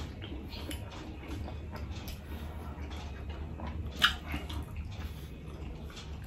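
Close-miked eating sounds: wet chewing and small mouth clicks from pizza and a shawarma wrap being eaten, with one sharper lip smack about four seconds in. A steady low hum runs underneath.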